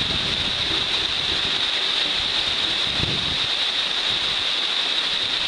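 Steady rushing of a waterfall, an even roar of falling water with a constant high hiss over it.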